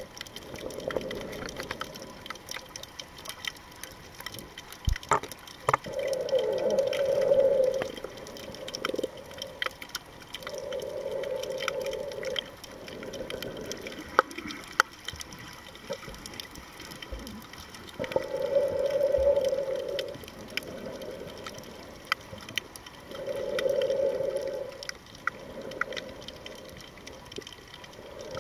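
A snorkeler's slow breathing through the snorkel, picked up by a submerged camera: a muffled rush lasting a second or two and coming back about every five seconds. Scattered faint clicks and crackles sound in between.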